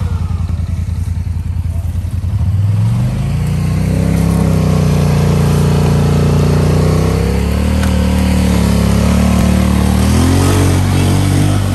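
ATV engine revving hard to drive out of deep mud. It runs low at first, climbs in pitch about two and a half seconds in, holds at high revs, and rises again near the end.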